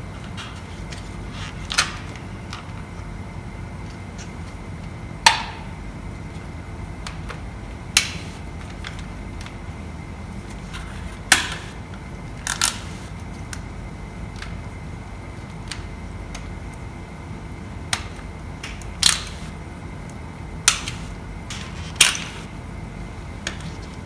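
Irregular sharp clicks and snaps, about ten of them, as the wiring and electrical connectors behind a Husqvarna 701's headlight are worked loose, over a steady low hum.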